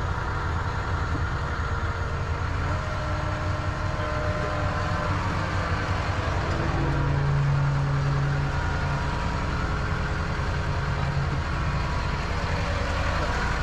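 Truck engine of a crane truck running steadily, briefly louder and a little higher about seven seconds in, with faint steady whining tones above it.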